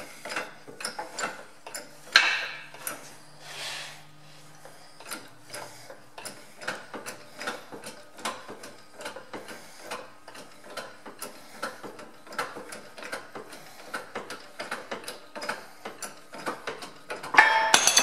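Hand-pumped hydraulic shop press working the old shaft out of a tractor steering bell crank: a run of light metallic clicks, a few a second, with the press under only a couple of tons of load. Near the end a louder ringing clank of metal on metal.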